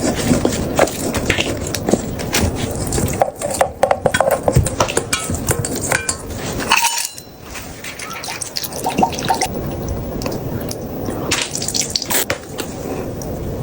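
Water running and dripping at a kitchen sink as something is washed, with many small clicks and knocks of dishes or utensils. The sound drops away briefly about halfway through, then resumes.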